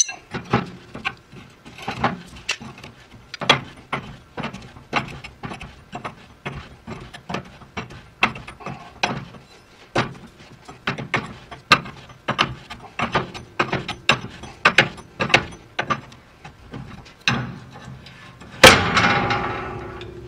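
Ratcheting wrench clicking in short strokes, a few clicks a second, as it unscrews the front threaded bushing from the lever-shock arm of a 1948 Chevrolet's front suspension. Near the end there is one loud metal clank that rings out.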